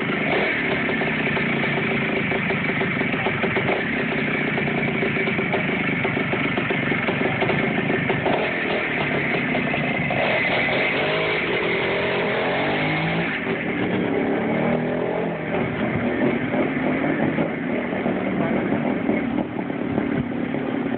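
Freshly restored 1967 Greeves MX5 Challenger 250's two-stroke single-cylinder engine running just after starting, revved up and down from about eight seconds in as the bike is ridden off.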